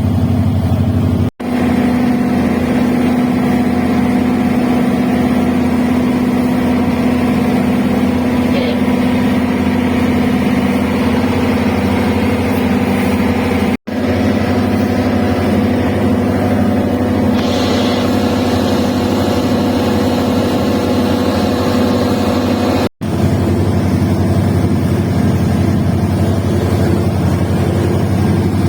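A boat engine running at a steady speed, broken three times by a sudden, momentary dropout.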